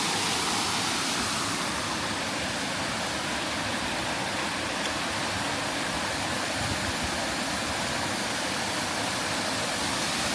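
Waterfall rushing over rock, a steady, even hiss of falling water with no breaks.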